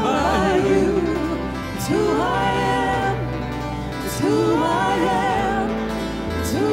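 Live worship band playing a slow praise song: singers with acoustic guitar and piano, the sung phrases coming in turn over sustained low instrumental notes.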